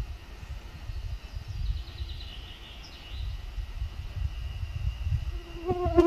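Mosquitoes buzzing around the microphone, one whining close by near the end, over a steady low rumble. A brief high bird twitter comes about two seconds in.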